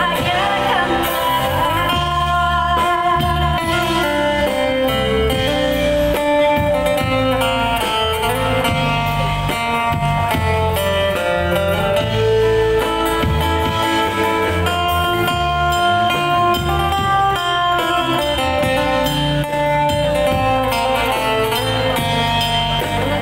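Amplified acoustic guitar playing an instrumental break: a picked melody line over low bass notes, heard through a PA.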